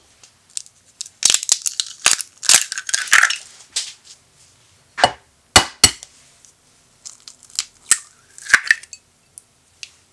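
Two raw eggs cracked open into a glass bowl, one after the other: each shell is struck with sharp taps, then crackles as it is pulled apart. The second egg's taps come about five seconds in.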